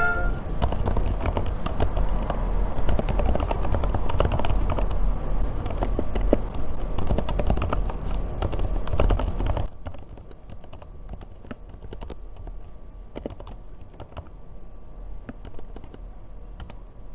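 Typing on a keyboard fitted with Kailh Box Coconut Latte silent switches: a quick, dense run of damped keystrokes. About ten seconds in, the typing turns softer and sparser.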